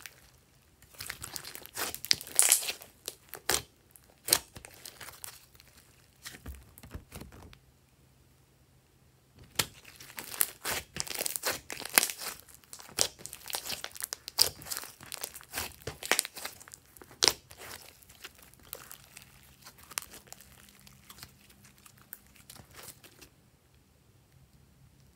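Hands squishing, stretching and pressing glossy slime, making sticky clicks and pops. They stop for about two seconds around eight seconds in, come back dense from about ten seconds, and thin out near the end.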